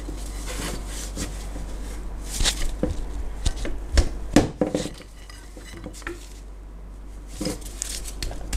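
Metal clanks, knocks and scrapes of a pry bar levering a stuck alternator off its mounting bracket in a VW Caddy 1.9 TDI engine bay. The sharpest knocks come about four seconds in.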